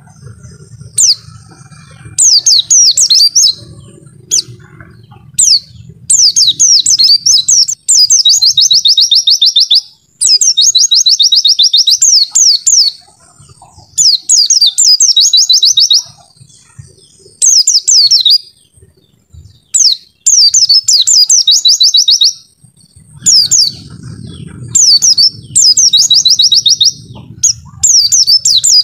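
White-eye (pleci) singing: loud, rapid bursts of high twittering chirps, each phrase a second or two long, repeated again and again with short pauses between.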